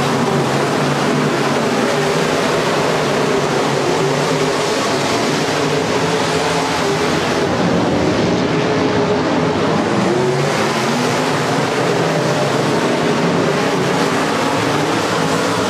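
A field of IMCA Modified dirt-track race cars running at speed, their V8 engines overlapping in a loud, steady drone, with individual engines rising and falling in pitch as the cars work the track.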